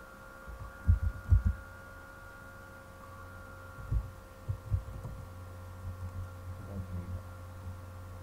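Steady electrical hum from the computer's microphone with a faint whine, broken by dull low thumps in two short clusters, about a second in and again around four seconds in: keystrokes and mouse clicks carried through the desk to the microphone while a search is typed.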